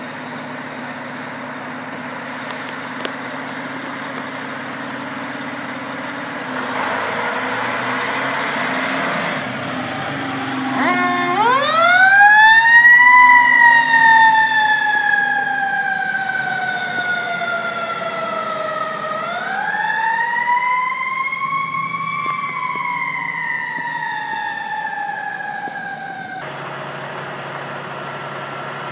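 Fire truck's engine running as it pulls out, then its siren winds up, falls slowly, winds up a second time and falls away again.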